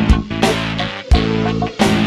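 Music: a band track with guitar chords held over a beat of drum hits.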